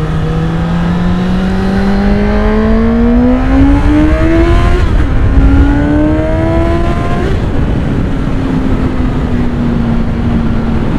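Suzuki GSX-S750's inline-four engine accelerating hard: the revs climb steadily, dip briefly for an upshift about five seconds in, climb again, then fall at about seven seconds to a steady lower cruising note.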